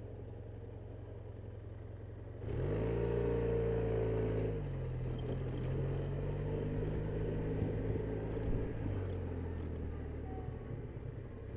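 Honda Silverwing scooter engine idling low, then about two and a half seconds in it opens up and gets louder as the scooter pulls away. It holds a steady pitch, drops a little about two seconds later, and keeps running steadily under way.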